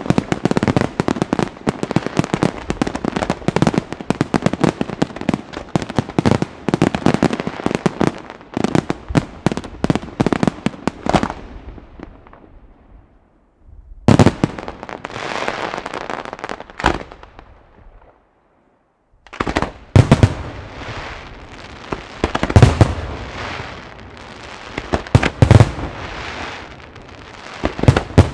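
Luigi Di Matteo fireworks display: a dense volley of rapid bangs and crackling that fades out after about ten seconds. Then come single loud aerial shell bursts two to three seconds apart, each trailing off in a fading crackle.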